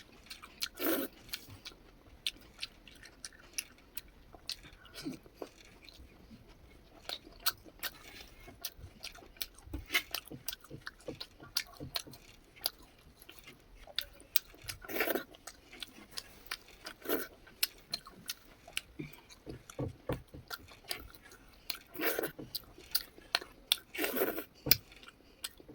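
Close-miked chewing and eating of chicken and rice: wet mouth sounds, irregular small crunches and clicks, and several louder smacks.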